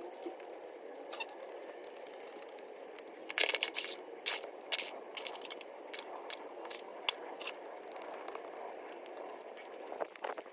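A wooden stick poking and scraping through loose potting soil in a plastic bonsai pot, working the soil in around a ficus's roots. It makes gritty scrapes and sharp clicks, bunched from about three seconds in and again near the end.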